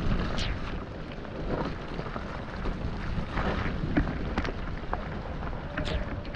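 Mountain bike riding fast down a wet, muddy trail: tyres running through mud and standing water, with wind on the microphone and scattered knocks and splatters as the bike goes over bumps.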